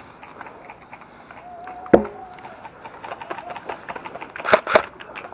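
A single sharp crack about two seconds in, then a quickening string of short snaps and clicks near the end, the sound of airsoft rifles firing during play.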